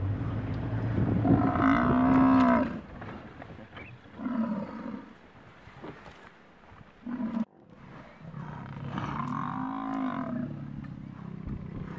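Cape buffalo caught by lions, bawling in distress: a long drawn bellow about two seconds in, two short calls in the middle, and another long bellow near the end.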